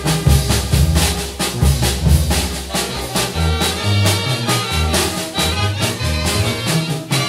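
A Mexican banda-style brass band playing: a tuba bass line under saxophones, clarinets and trumpets, with hand cymbals (platillos) clashing on a steady beat.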